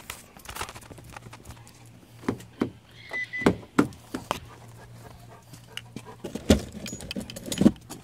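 Clicks, knocks and jangling of someone rummaging in a car at night, with a short electronic beep about three seconds in. Several sharp knocks stand out, the loudest a little after the beep and near the end.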